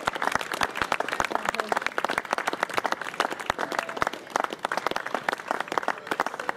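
Applause: a group of people clapping continuously, with individual hand claps distinct.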